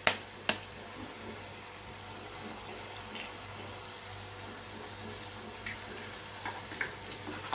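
An egg rapped twice sharply on the rim of a stainless steel pan to crack it, then a steady faint hiss from the masala simmering in the pan, with a few soft ticks near the end.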